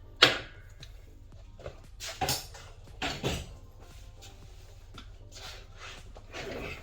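Parts and tools being handled on a workbench while stripping an alloy cylinder head: a sharp knock just after the start, then a few clusters of knocks and scrapes, and a short rasping scrape near the end.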